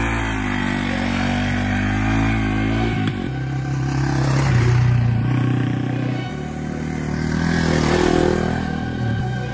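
Yamaha TW200 dirt bike's single-cylinder four-stroke engine running under way, its pitch rising and falling with the throttle. The sound shifts abruptly about three seconds in and again a few seconds later.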